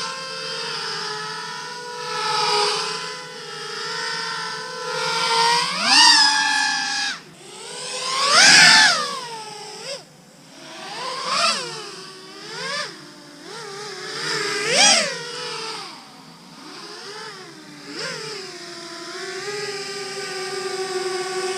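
A 7-inch FPV quadcopter with Brotherhobby 2808 1500kv motors and Gemfan 7040 props flying by, its motor and prop whine rising and falling in pitch and loudness over and over as the throttle changes. The loudest swell comes about eight to nine seconds in.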